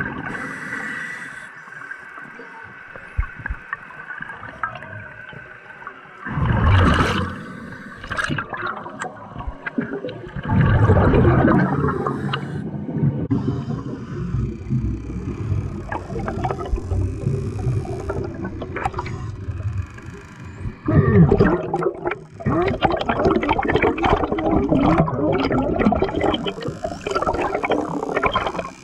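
Underwater sound of a scuba diver's exhaled bubbles rushing and gurgling past the camera, coming in several loud surges a few seconds apart, with crackling bubble noise in between.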